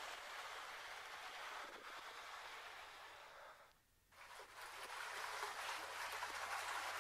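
Steady hiss of a small creek running over rock. It drops out for a moment about halfway through, then comes back.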